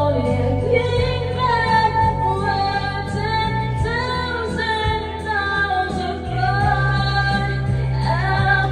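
A woman singing karaoke into a handheld microphone over a backing track with a steady bass line.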